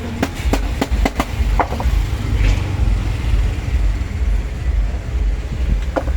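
Steady low rumble, traffic-like, with a quick run of sharp clicks and knocks in the first second and a half and another click near the end.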